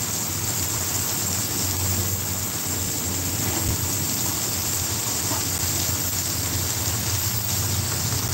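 Pancakes and sliced sausage sizzling on a hot griddle: a steady, even hiss with a low hum underneath.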